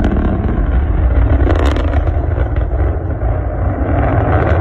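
Loud, steady low rumble from a rocket launch.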